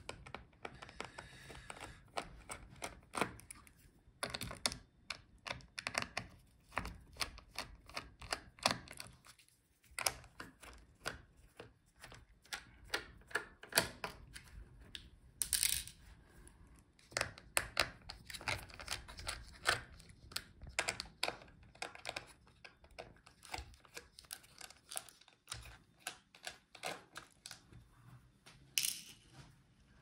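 Irregular small clicks and taps of a small screwdriver working the M2x4 screws out around the battery of an Alienware x17 R1 laptop, with light handling knocks of the chassis parts.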